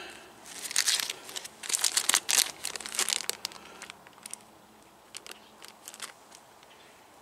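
Thin clear plastic bag crinkling as gloved hands handle it, busiest in the first three seconds or so, then trailing off into a few light rustles and clicks.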